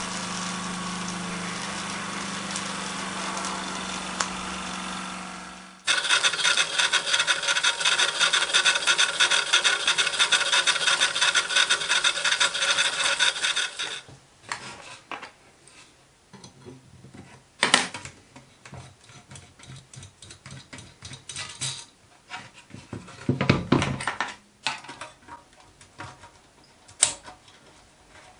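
Small brass model steam engine with two double-acting cylinders, running on steam from its boiler. It goes steadily at first, then from about six seconds in runs louder as fast, even exhaust beats with hiss, and stops abruptly near the middle. After that come scattered light clicks and knocks of small brass parts being handled on a bench.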